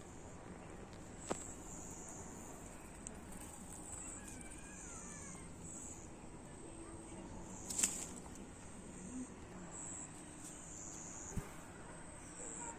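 Outdoor insects chirping in high-pitched stretches of about a second each, over a steady background hiss, with a few short sharp taps.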